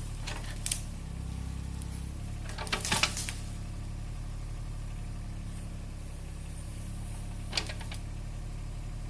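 An engine idling steadily with a low hum, with a few sharp knocks or clicks: one early, a short cluster about three seconds in, and one more near the end.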